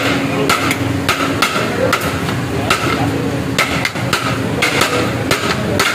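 A metal serving spoon striking metal cookware in repeated sharp, ringing knocks, irregular at about two a second, over a steady low hum.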